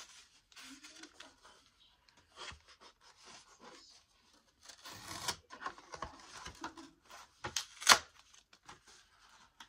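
Hands opening a flat white cardboard box: scattered rubbing, scraping and tearing of cardboard and packaging, with a sharp click about eight seconds in as the loudest sound.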